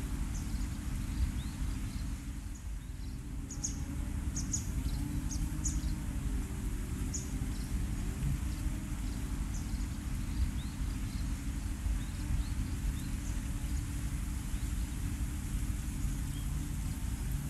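Riverside outdoor ambience: a steady low rumble of background noise, with short, high bird chirps scattered mostly through the first half.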